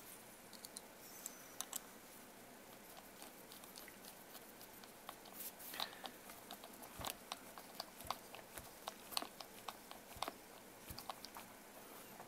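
Faint, irregular small clicks and ticks of a TRX-4 RC crawler's wheel being fitted back onto its hub and its wheel nut done up with a small hand driver, busier from about halfway through.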